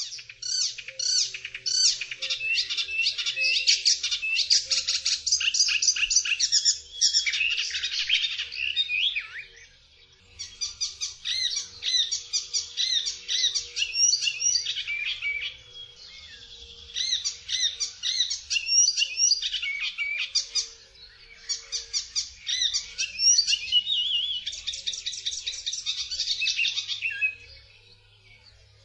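Icterine warbler singing: a long, rapid, varied stream of high chirping and squeaky notes, delivered in four long bouts separated by short pauses.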